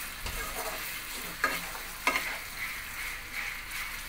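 Wooden spatula stirring chicken pieces in a non-stick wok, with a few knocks against the pan. Under it the chicken sizzles steadily in the water it has given off after salting.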